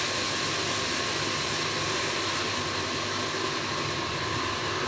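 Milk tea sizzling and boiling up around a heated clay cup (kulhad) in a pan, frothing over the cup with a steady hiss.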